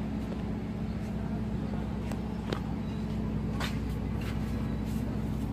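Steady low rumble of road traffic, with a few light clicks from ceramic flower pots being handled.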